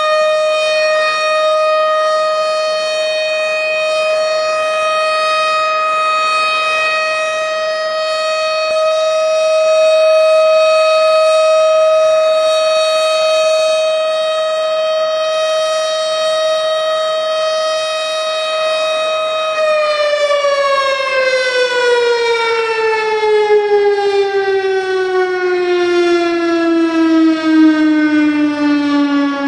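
Mosque siren sounding the Ramadan fasting-time signal: one long, loud wail held at a steady pitch for about twenty seconds, then winding down, its pitch falling steadily over the last ten seconds.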